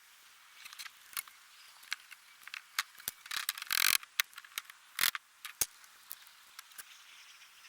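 Scattered sharp clicks and light knocks of hand work taking apart a wooden structure, with one short scraping rustle just before four seconds in, the loudest sound.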